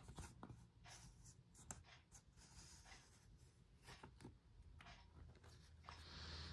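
Faint rustling and scraping of card stock as a stack of glossy art cards is slid out of a paper band, with soft taps, and a longer rustle near the end.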